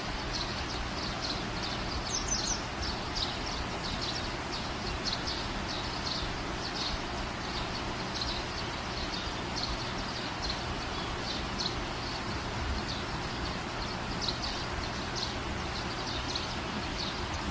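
Steady background hiss with short high-pitched chirps from small animals, repeating irregularly about once or twice a second, with one sharper sweeping chirp about two seconds in.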